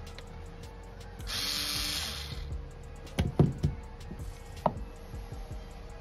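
A short hiss about a second in, then a few sharp knocks and clicks near the middle, as hands work a screwdriver at the carburetor bowl drain of a small generator, over soft background music.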